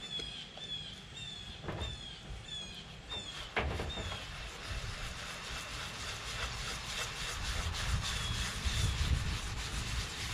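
Green scouring pad scrubbing a soot-blackened Presto aluminium pressure canner wet, with baking soda and Bar Keepers Friend: a scratchy rubbing, with a run of quick, high, chirping squeaks, about two a second, over the first four seconds.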